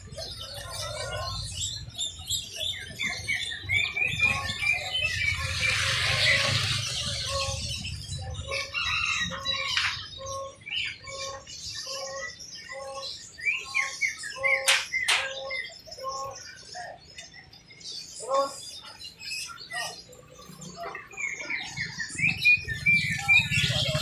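Many caged birds chirping and calling at once. In the middle, one bird repeats a short two-part call about twice a second.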